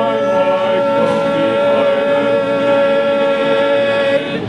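Male choir holding a long closing chord, steady in pitch, cut off together about four seconds in.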